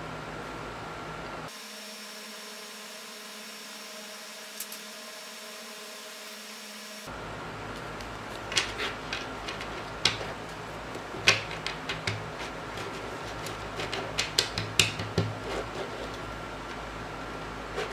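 A stack of printed paper flipbook cards being handled by hand on a wooden table. It is a steady faint hiss at first, then in the second half a string of sharp taps and clicks as the cards are shuffled and knocked square.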